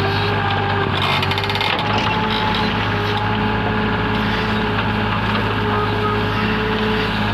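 Backhoe's diesel engine running steadily under work, with a brief metallic rattle about a second in.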